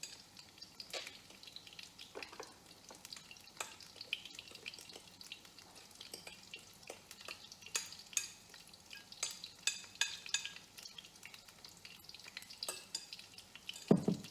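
Vegetable fritters frying in hot oil: a steady sizzle with many irregular sharp crackles and pops. A single louder knock comes just before the end.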